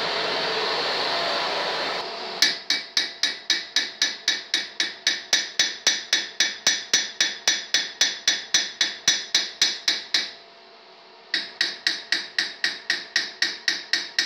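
Small hammer striking a freshly TIG-welded aluminium cylinder head of a Daewoo Lanos 1.5 in quick, even blows, about four a second: the welds being peened. A steady hum comes first, then the blows start about two seconds in and stop briefly about ten seconds in before resuming.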